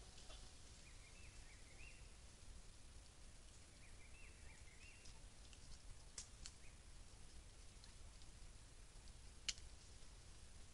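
Near silence: faint outdoor background hiss with two short runs of faint high chirps and a few sharp ticks, the loudest single tick near the end.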